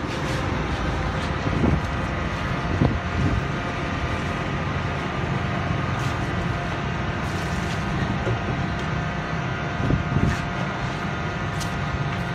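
The electric motor and hydraulic pump of a home-built truck tire press run steadily as the press works, a low hum with a constant whine over it. A few light knocks come through it, about two seconds in and again near ten seconds.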